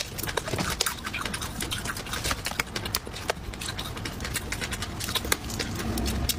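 Close-miked eating of cooked hermit crab: a dense, irregular run of sharp crackles and clicks as the shell is bitten and pulled apart, with wet sucking mouth sounds.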